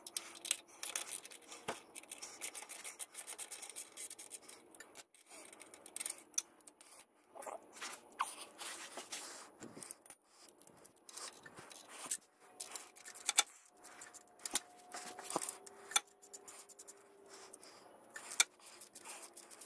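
Hand tools on metal under a car: irregular sharp clicks, ticks and short scrapes in quick clusters, as a socket and ratchet work at the bolts of a rear motor mount.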